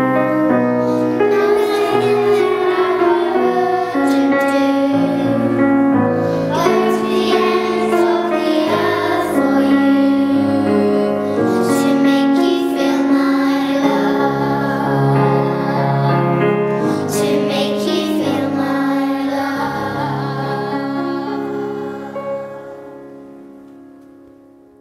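A song: voices singing over instrumental accompaniment, fading out over the last few seconds.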